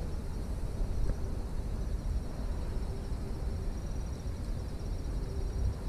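Open-air creekside ambience: a steady low rumble with a faint, wavering high insect trill above it.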